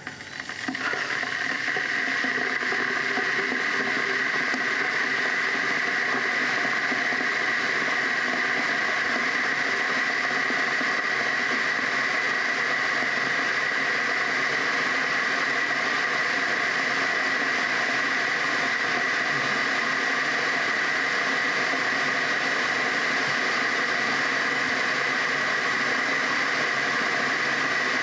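DeLonghi electric kettle heating water: a steady hiss and rumble that builds over the first couple of seconds and then holds, the sound of the water heating up before it comes to the boil.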